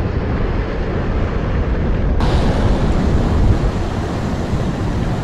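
Wind buffeting the microphone over sea surf washing against shoreline rocks, a steady rough rumble. About two seconds in it turns brighter and hissier.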